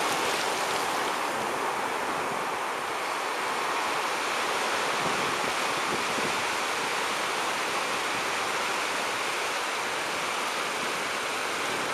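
Steady wash of ocean waves and surf, an even rushing noise with no breaks.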